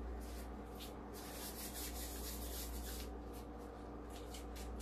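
Soft rubbing and shuffling of hands rolling cookie dough into small balls, densest from about one to three seconds in, over a steady low hum.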